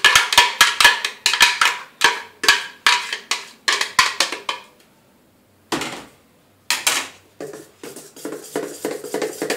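A spatula scraping and knocking cake batter out of a plastic blender jar, a quick run of strokes about four or five a second that stops about five seconds in. After a short pause and two louder scrapes, the batter is stirred in a metal bowl with rapid rhythmic strokes.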